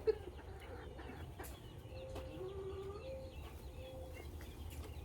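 Chickens clucking in a few low, drawn-out notes between about two and four seconds in, with faint short high chirps scattered throughout.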